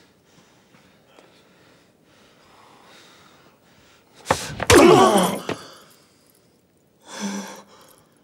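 A man's loud, gasping cry about four seconds in, its pitch sliding down over about a second, amid faint ragged breathing. Another short, sharp gasp comes near the end.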